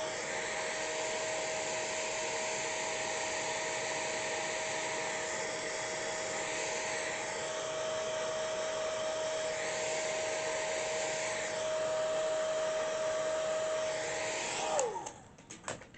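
Handheld hair dryer blowing steadily with a steady motor whine, drying a layer of lace wig glue; about fifteen seconds in it is switched off and the whine falls away as the motor spins down.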